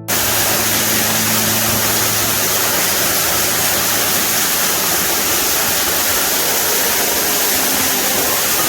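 Underground waterfall in a cave: a steady rush of falling water.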